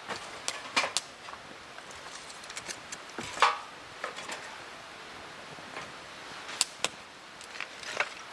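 Campfire wood crackling, with irregular sharp snaps and pops, the loudest about three and a half seconds in.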